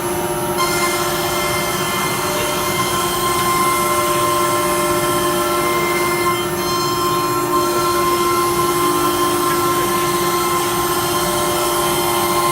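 CNC router machine running: a steady whine of several held tones over a continuous mechanical rush, the high hiss dipping briefly twice.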